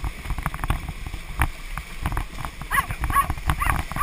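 A pony and carriage splashing through shallow water, with the water churning, many sharp clicks and knocks, and wind on the microphone. A few short, high pitched calls come about three seconds in.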